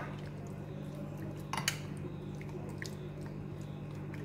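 A spoon stirring raw chicken strips in a wet spice marinade in a glass bowl: soft squelching, with a clink of metal on glass right at the start, another about a second and a half in, and a few fainter ticks, over a steady low hum.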